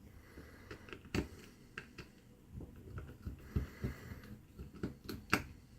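Scattered light clicks and taps of a small plastic key-fob camera being handled at close range, the sharpest tap near the end.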